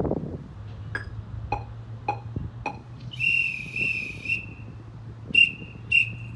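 Four sharp ticks at a steady beat, then a drum major's whistle: one long, slightly warbling blast followed by short blasts in the same tempo, the whistle count-off that starts a marching band.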